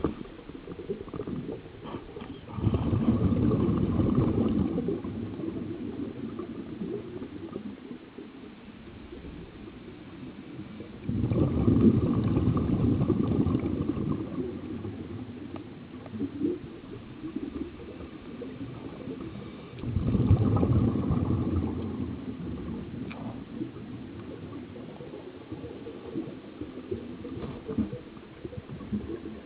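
Scuba regulator exhaust heard underwater: a diver's exhaled breath gurgling out as bubbles in bursts. There are three bursts about every nine seconds, each lasting a couple of seconds and then fading.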